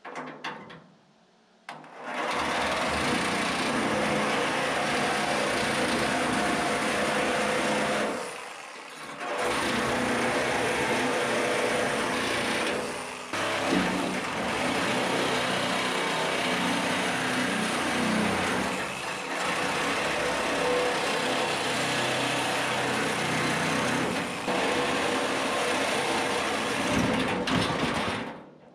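Corded reciprocating saw with a metal-cutting blade sawing through the steel tube bars of an IBC tote cage. It starts about two seconds in and stops briefly twice along the way.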